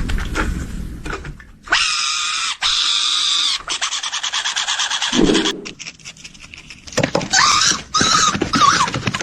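An animal's high-pitched squeals: one long call about two seconds in, then a quick rattle of clicks, and several shorter squeals that bend in pitch near the end.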